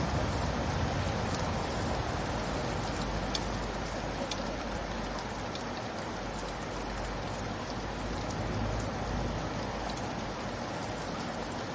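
Steady rain falling, an even hiss with occasional sharper drops ticking through it, over a low rumble.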